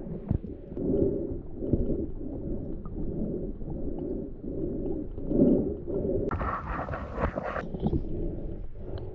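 Muffled underwater sound of flowing river water around a submerged camera, pulsing about every two thirds of a second. A brief hissing burst comes a little after six seconds in.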